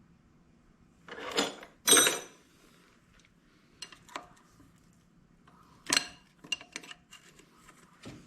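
Metal clanking and clinking, like tools and parts being handled: two loud clanks a little over a second in, then scattered lighter clinks and taps, with another loud clank about six seconds in.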